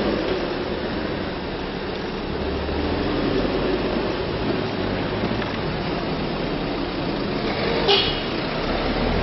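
Police cars driving out one after another, their engines running and tyres on the road, with a brief sharp sound about eight seconds in.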